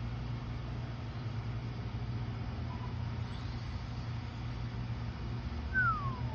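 Steady low mechanical hum under a faint background hiss. Near the end comes a short whistle that falls in pitch.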